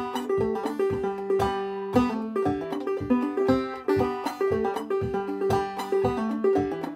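Solo open-back banjo played clawhammer style: a lively tune of quick plucked notes and strums in a steady rhythm.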